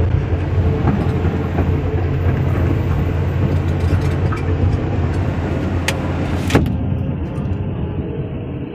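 Kobelco hydraulic excavator's diesel engine running steadily, heard from inside the operator's cab as the machine works soil with its bucket, with two sharp knocks about six seconds in. The engine sound eases off near the end.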